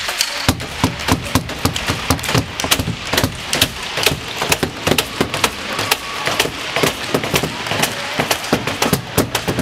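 Many hockey sticks tapped against the ice and boards in a fast, irregular clatter of sharp knocks: the players' salute for an injured player.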